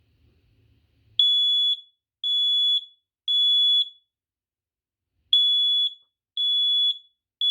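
Smoke detector alarm beeping in the temporal-three pattern, the standard evacuation signal: three high-pitched half-second beeps, a pause, then three more. It is set off as a test.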